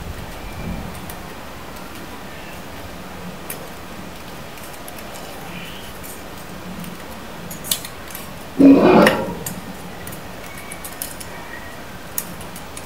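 A folded paper banknote being handled and creased by fingers: soft paper rustling and small clicks, with one louder short burst of handling noise about nine seconds in.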